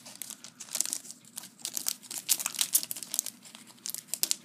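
Foil Yu-Gi-Oh booster-pack wrapper crinkling and crackling as it is handled in the hands, in irregular quick crackles.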